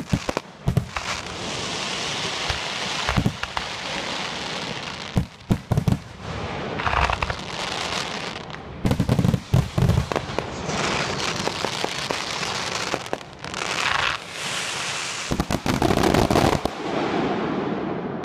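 Fireworks display: aerial shells bursting with repeated sharp bangs, several coming in quick clusters, over continuous crackling.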